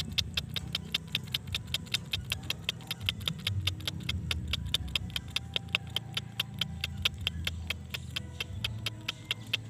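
Rapid, regular clicking, about six or seven clicks a second, over a low steady rumble.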